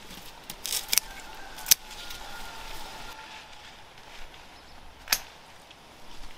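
A few sharp clicks or snaps: a quick cluster just before one second in, the sharpest just under two seconds in, and one more about five seconds in.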